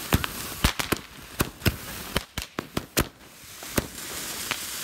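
A ground firework fountain going off: about a dozen sharp crackling pops at uneven intervals, giving way to a steady hiss of spraying sparks near the end.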